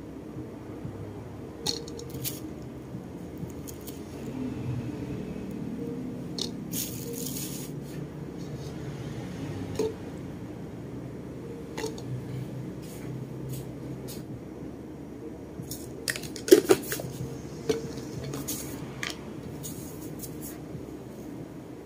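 Small plastic blender cup being filled by hand: herb leaves dropped in and plastic lids and containers handled, giving scattered light clicks and taps, a brief rustle about a third of the way in, and a quick run of sharper knocks a little past halfway, over a low steady hum.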